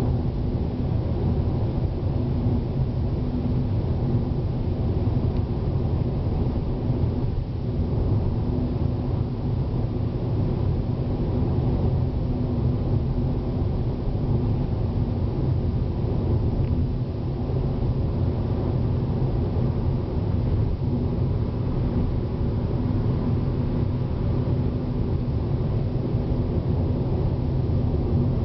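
Steady low rumble of a car driving on a highway, heard from inside the cabin: engine and tyre noise with a constant hum.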